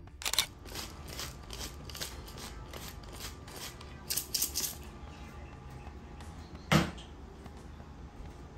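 A run of light, sharp clicks, about two or three a second, with a denser cluster about four seconds in and one heavier knock near the end.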